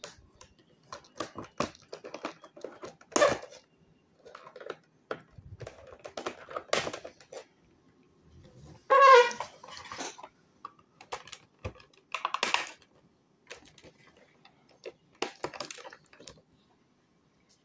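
Small scissors snipping through the plastic ties and packaging of a toy box, with irregular clicks and rustles of plastic and cardboard as it is handled. About nine seconds in there is a short, louder squeak.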